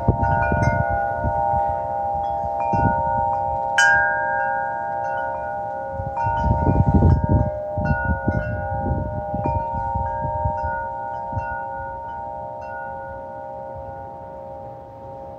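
Metal wind chimes ringing in gusty wind: several tones struck at irregular moments and ringing on over one another, with the rush of wind surging in gusts. The chiming and wind die down toward the end.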